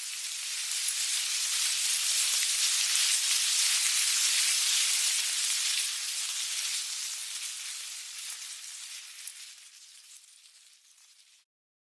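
Ant-colony sound effect: a dense, fine crackling rustle, high in pitch like many tiny legs on a surface. It swells over the first few seconds, holds, then fades away gradually and stops near the end.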